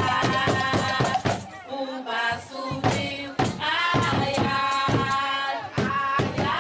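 Bumba-meu-boi folk music: voices singing a melody together, backed by sharp hand-percussion strokes.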